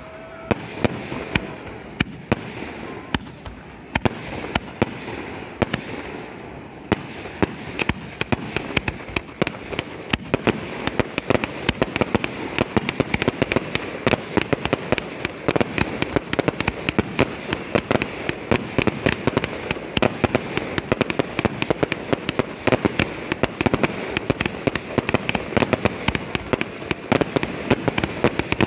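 Fireworks display: aerial shells bursting in rapid succession, a continuous barrage of sharp bangs and crackles that grows much denser from about seven seconds in.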